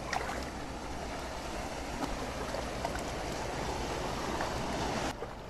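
Shallow seawater washing and lapping among intertidal rocks in a steady wash, with a few faint clicks. It cuts off abruptly near the end.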